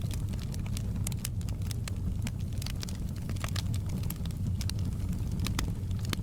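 Fireplace wood fire crackling: irregular sharp pops and snaps over a steady low rumble of the flames.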